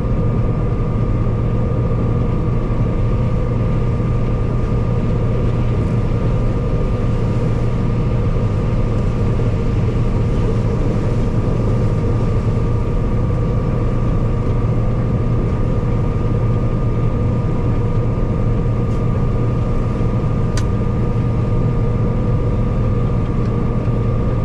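Combine harvester running steadily while harvesting corn: an even engine drone with constant steady whining tones from the threshing machinery, no change in speed.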